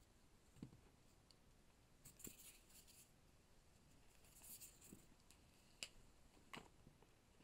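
Faint marker-on-whiteboard sounds: two short scratchy strokes about two seconds and four and a half seconds in, and a few light taps of the marker against the board.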